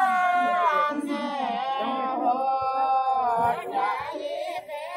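Women singing a Shekhawati (Marwari) folk song in high voices, holding long, wavering notes.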